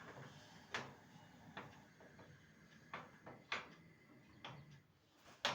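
Scattered light clicks and knocks, about seven at uneven intervals, the loudest one near the end.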